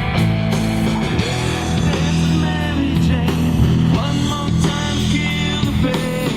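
Live rock band playing, electric guitar to the fore over bass and drums.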